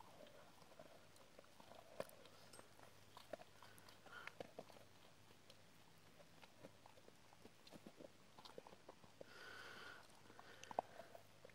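A dog gnawing on a rock: scattered sharp clicks and cracks of teeth on stone, with a brief breathy sound about nine seconds in.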